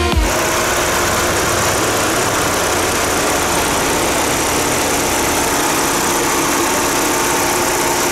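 Chevrolet Tornado pickup's four-cylinder engine idling steadily, heard close up with the hood open.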